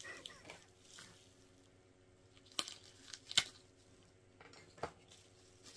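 Faint handling noise from the film set's packaging: a few sharp clicks and taps, the loudest about three and a half seconds in.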